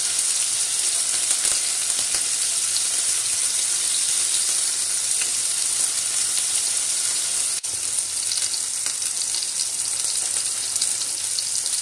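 New York strip steak and herbs frying in hot canola oil in a pan, a steady sizzle with fine crackles. The sound drops out for an instant about two-thirds of the way through.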